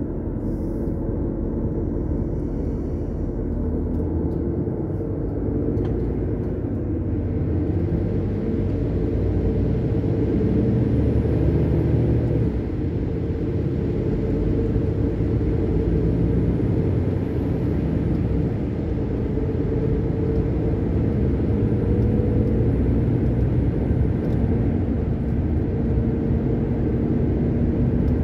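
Truck engine and road noise heard from inside the cab, a steady low rumble that builds over the first several seconds, with a brief dip about twelve seconds in.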